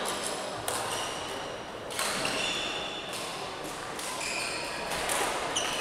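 Badminton rackets striking the shuttlecock in a reverberant sports hall, about one sharp hit a second, each with a brief high ringing ping.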